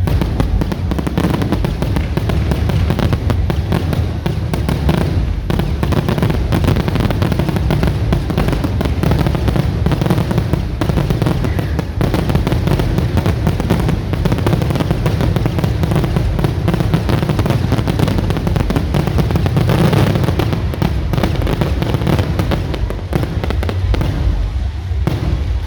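Fireworks going off in quick succession: a dense, continuous run of bangs and crackles over a heavy low rumble.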